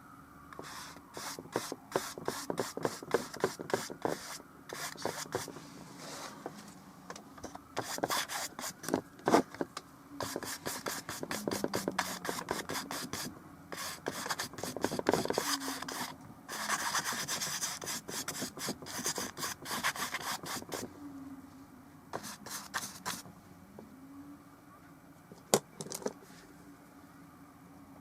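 Paintbrush scrubbing and dabbing oil paint onto the painting surface in quick runs of short, scratchy strokes, with brief pauses between runs.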